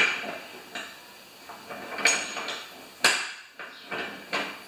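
Metal hardware clanking and knocking against an overhead rail as it is fitted by hand: about six sharp, irregular knocks with a short ring after each, the loudest at the start and about two and three seconds in.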